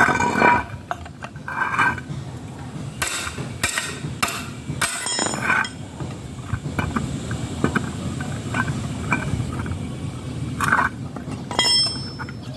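Scattered light clinks and knocks of tableware, such as a spoon against a bowl or glass, during a meal, over a low steady rumble.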